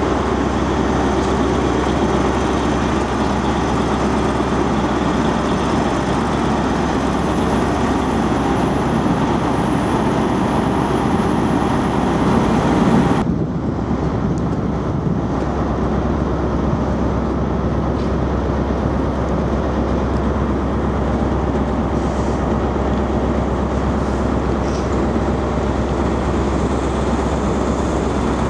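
Diesel engine of a standing InterCity 125 (HST) Class 43 power car running steadily, a constant low hum under a hissing rumble. About thirteen seconds in the sound cuts to a duller steady station rumble.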